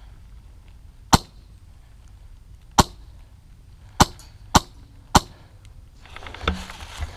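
Five single shots from a Polarstar HPA airsoft HK417 rifle, each a sharp pop. The first two come more than a second apart, the last three about half a second apart.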